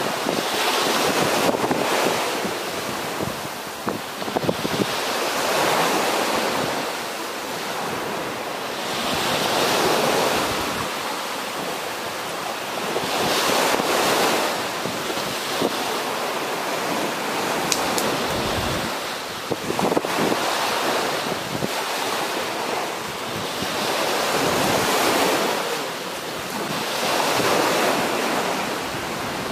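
Surf breaking on a beach, each wave swelling and falling away every four to five seconds, with wind buffeting the microphone.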